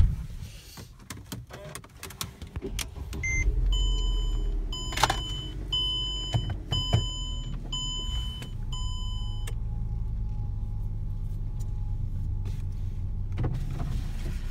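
Inside a Mercedes-Benz E-Class: a thud at the start, then the engine starts about three and a half seconds in. The dashboard warning chime sounds six times, about once a second, and after that the engine idles steadily.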